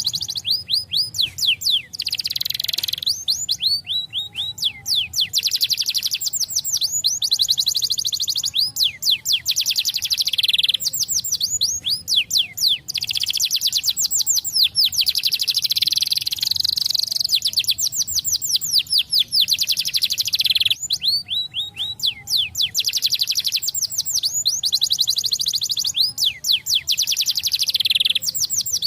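Colour canary singing a long, unbroken song of rapid trills: fast strings of repeated notes that sweep downward, with short pauses every few seconds.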